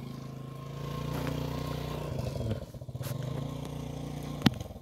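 A vehicle motor running steadily with a low hum and a faint whine. It swells for a couple of seconds and dips about two and a half seconds in, and there is one sharp click near the end.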